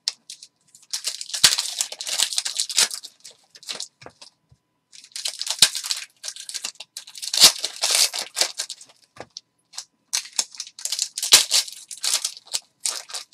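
Foil trading-card pack wrappers being torn open and crinkled, in irregular bursts of crackling with short pauses between them.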